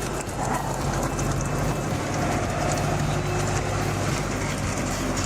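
Diesel engine of a Fiat 80-90 tractor running steadily at an even pitch.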